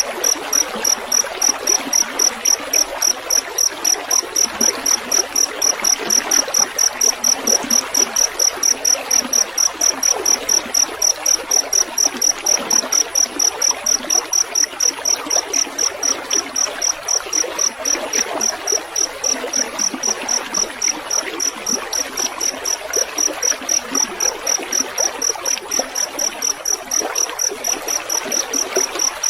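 Field cricket chirping steadily, a high even tone pulsing about three times a second, over a continuous trickle of running water.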